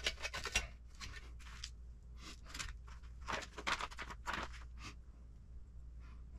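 Paper rustling and crinkling in a string of short bursts as the pages of a kit instruction manual are turned, dying away near the end.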